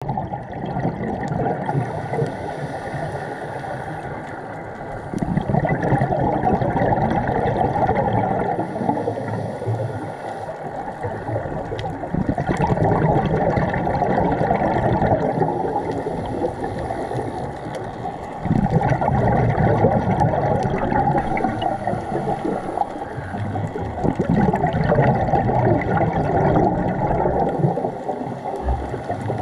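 Underwater sound of a scuba diver's regulator breathing and exhaled bubbles: a muffled rushing noise that swells every six seconds or so with each breath.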